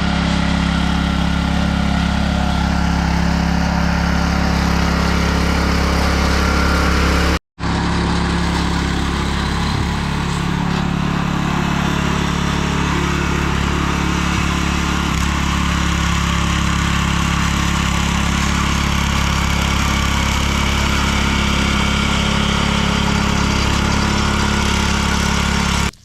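A small engine running steadily and loudly at close range, like garden power equipment. It cuts out for a moment about seven and a half seconds in, then carries on unchanged.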